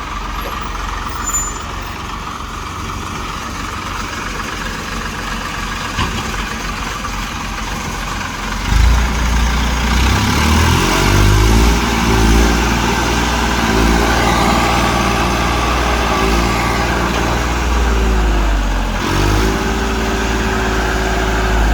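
TAFE tractor's diesel engine running with a backhoe loader fitted: idling evenly for about the first nine seconds, then speeding up to a louder, higher steady note, which drops briefly near the end before rising again.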